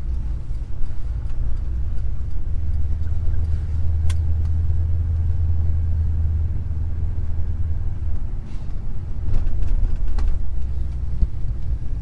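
Steady low engine and road rumble heard inside the cab of an older pickup truck while it is driven, with a few short clicks.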